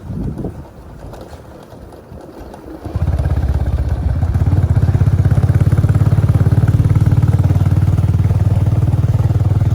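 A motor vehicle engine, close by, comes in abruptly about three seconds in and then runs steadily with a fast, even pulse.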